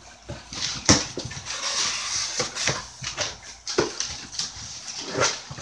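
Cardboard box flaps being pulled open and crumpled kraft packing paper rustling and crinkling under the hands, with a few sharp knocks and scrapes.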